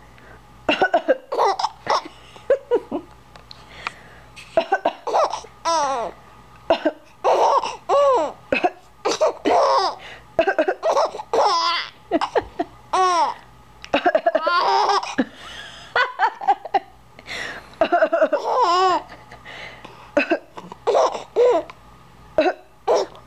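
A woman's fake coughs and a young child's laughter answering them, again and again in short bursts.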